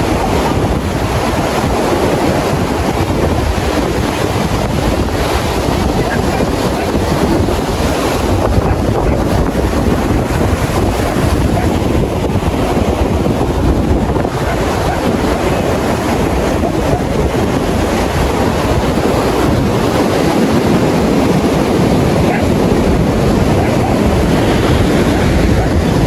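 Surf breaking and washing up a sandy beach in a steady rush, with wind buffeting the microphone.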